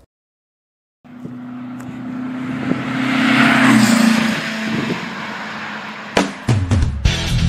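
Engine of a passing vehicle in an intro sound effect: after about a second of silence it builds to its loudest a few seconds in and falls away. Near the end come a few sharp clicks and the start of rock guitar music.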